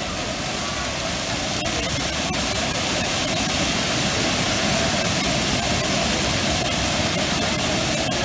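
A large anar (flower-pot fountain firework) hissing steadily as it sprays a column of sparks, growing a little louder over the first few seconds, with a few faint crackles.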